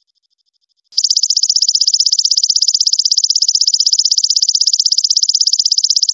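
A belalang emas ('golden grasshopper'), an orange katydid, stridulating: a loud, high-pitched trill made of fast, even pulses. It starts suddenly about a second in and keeps going steadily.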